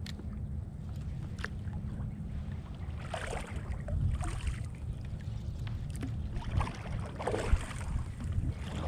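Water splashing and sloshing around a kayak in a few separate washes, over a steady low rumble of wind on the microphone.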